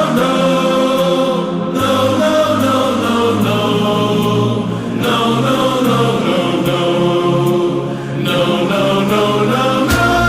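Music with a choir singing long, held chant-like notes that change every couple of seconds.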